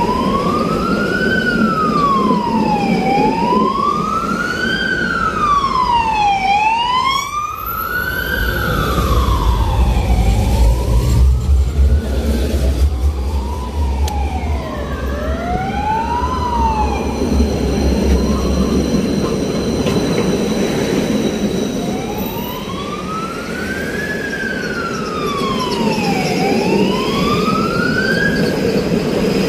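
Emergency-vehicle siren wailing, its pitch sliding up and down about once every three and a half seconds, breaking off briefly about two-thirds of the way in and then resuming. A second, quicker wail overlaps it around the middle, over a low rumble.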